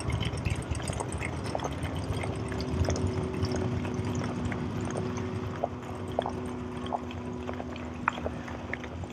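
Measuring wheel rolling along asphalt at a brisk walking pace, with short scattered clicks. A steady low hum starts about two seconds in.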